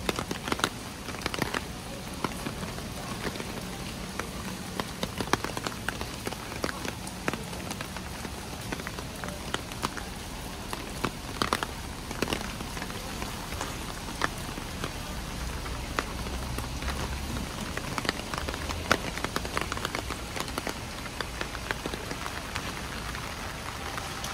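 Steady rain falling, with frequent sharp taps of individual drops.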